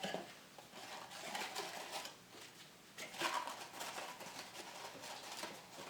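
Faint rustling and small irregular clicks of foam polishing pads being handled, with a slightly louder handling noise about three seconds in.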